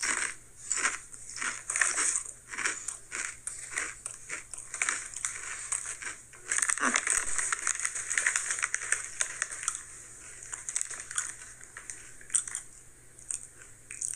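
Original Sun Chips crunching as they are chewed: a fast run of sharp crunches that merges into a denser crunching stretch midway, then thins out to scattered crunches near the end.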